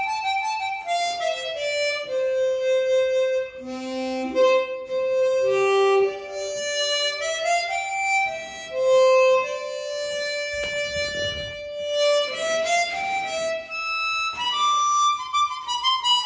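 Hohner 270 Super chromatic harmonica played in a slow melody of single held notes that step up and down. It is a play test of airtightness after the harp's rebuild, and the player judges it airtight.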